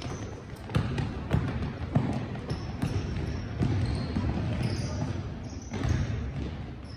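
Basketball game sounds in a large, echoing sports hall: a ball bouncing on the court and a run of players' footsteps, with several short high squeaks of shoes on the floor.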